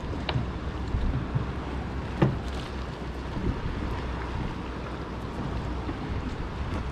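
Wind rumbling on the microphone over water lapping against a boat's hull, with a couple of brief clicks from handling the fishing tackle.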